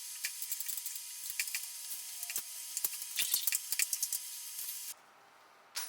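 Many small irregular clicks and taps of parts being handled as a blade is fitted to a miter saw, over a steady hiss that cuts off abruptly near the end.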